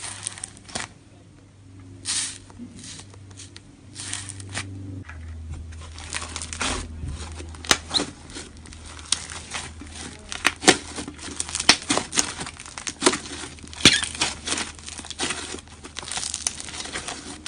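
Iceberg slime's hardened top crust crackling, snapping and tearing as fingers press into and pull the slime. The crackles come in short, irregular bursts and grow denser, with sharp snaps, after about five seconds.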